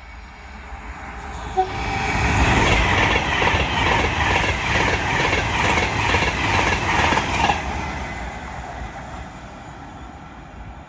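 A train passing at speed on a main line: it rises about a second in and is loud for roughly five seconds. There is a fast, regular clatter of wheels going by, and then it fades away.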